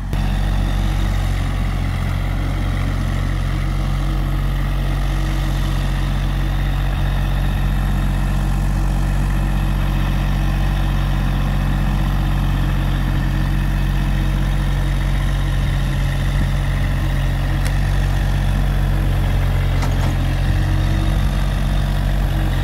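Massey Ferguson compact tractor engine running steadily at close range while the front loader works.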